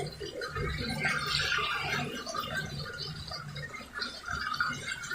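Toilet in a public restroom flushing without shutting off, water rushing steadily into the bowl: a flush that keeps running for minutes, which the owner cannot explain.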